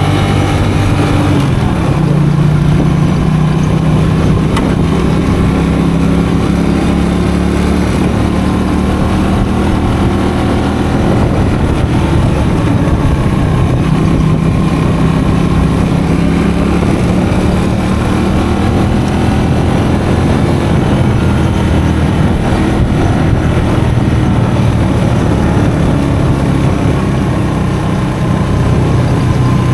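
Custom motorcycle engine running under way on a dirt road, its note rising and falling repeatedly with the throttle.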